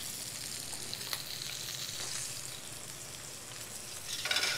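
Browned pork tenderloin sizzling steadily in a hot stainless-steel skillet. Near the end there is a brief louder scrape as the pan slides onto the oven rack.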